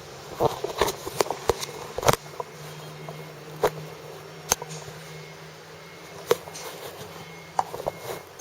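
About a dozen irregular light clicks and knocks, bunched in the first two seconds and then scattered, over a steady low hum.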